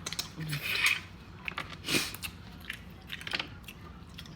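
Close-up eating sounds of a person biting and chewing seafood, with irregular clicks and crunches, the loudest about two seconds in.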